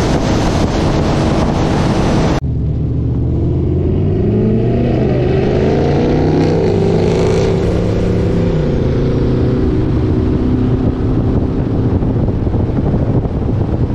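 Heavy wind and road noise inside a car at about 150 mph, cut off suddenly about two seconds in. After that, a V8 car engine at low speed revs up and down several times between about four and eight seconds in. Then it settles into a steady pull, with road and wind noise building as the car speeds up.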